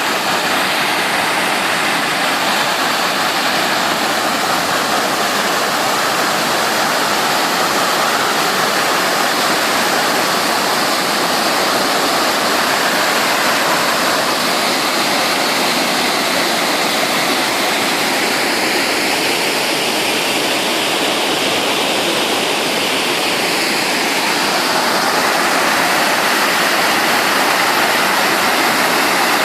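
Waterfall on a small river pouring steadily: a loud, even rush of falling water.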